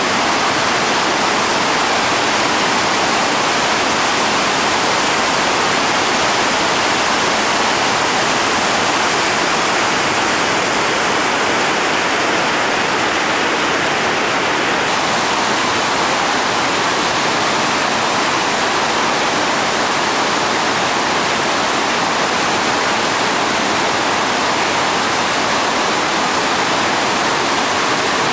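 River rapids: whitewater rushing over rocks, a loud, steady rush of water.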